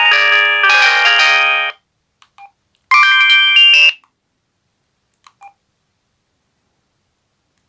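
A Samsung SGH-M140L mobile phone's speaker playing a melodic tone with several notes sounding at once, which stops about 1.7 s in. About three seconds in it plays a short chime of about a second, with faint short beeps before and after.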